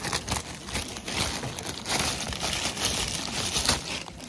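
Thin plastic bag of toast rusks crinkling as it is handled and opened, in an irregular run of crackles.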